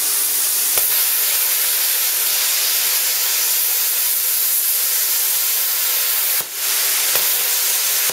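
Budget Chinese plasma cutter's arc hissing steadily as it burns through a thick stainless steel fitting, with a brief break about six and a half seconds in.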